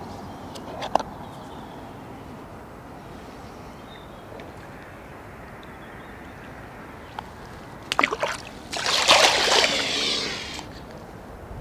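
Water splashing and sloshing at the river's edge for about two seconds, starting about nine seconds in, after a few light clicks of fishing tackle.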